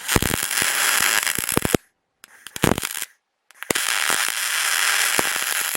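Wire-feed (MIG) welding arc on aluminium crackling and hissing in three runs: a bead of almost two seconds, a short burst about two and a half seconds in, and a longer bead from near four seconds on, with short silences between as the trigger is released.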